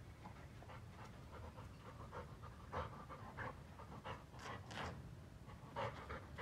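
Golden retriever panting with its mouth open: faint, quick, uneven breaths that come more often in the second half.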